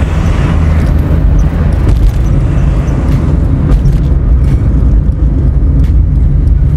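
Steady low rumble of a car driving along a paved highway, heard from inside the car: engine and road noise.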